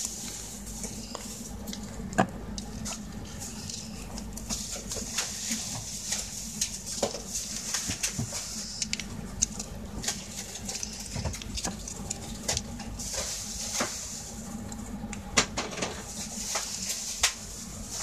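Plastic cat-puree pouch being squeezed and pressed against the rim of a pet bowl: scattered small crinkles and clicks, with a few sharper taps, over a steady low background hum.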